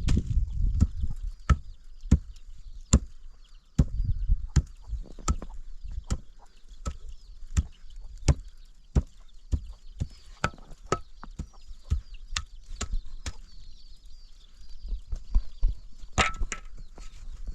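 Repeated sharp chopping strikes, roughly one or two a second at an uneven pace, with faint high chirping underneath.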